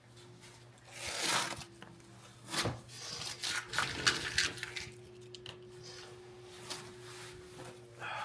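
Intermittent rustling and rubbing with a sharp click about two and a half seconds in, over a faint steady hum.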